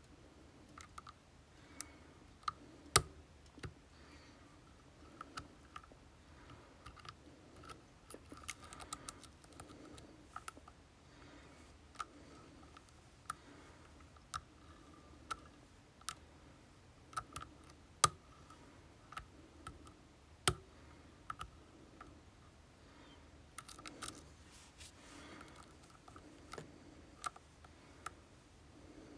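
Lock picks working in an Assa Twin Combi 4800 lock cylinder: irregular small metallic clicks and ticks, with a few sharper louder clicks.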